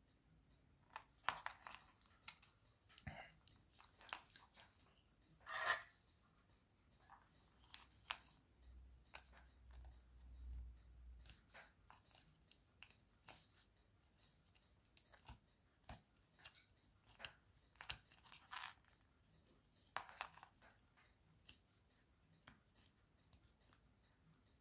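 Faint handling noises at a workbench: scattered light clicks, taps and short rustles, with one louder scrape about six seconds in.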